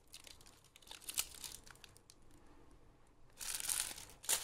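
Crinkly packaging rustling as it is handled: faint scattered rustles at first, then a louder spell of crinkling about three and a half seconds in.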